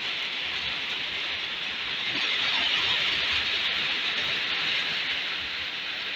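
Steady hiss of rain falling, swelling a little in the middle.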